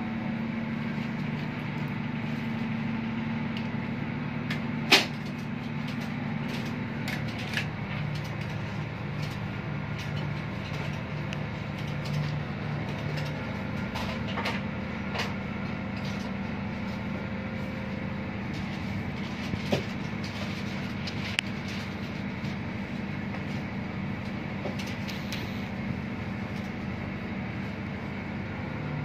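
Steady low drone of running engine-room machinery, heard inside the engine control room, with scattered clicks and knocks; the sharpest comes about five seconds in.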